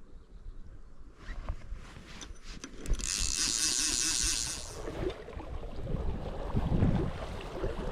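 Wind buffeting the microphone while an angler wades through river water, with a loud rushing, splashing swish of water about three seconds in.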